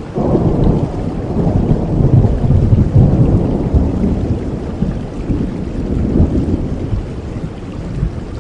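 A long roll of thunder over steady rain. The low rumble swells in the first couple of seconds and then slowly dies away.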